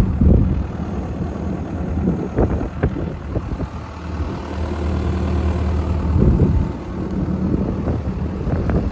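JCB JS130 tracked excavator's diesel engine idling steadily, with a few short knocks about two and a half seconds in and again about six seconds in.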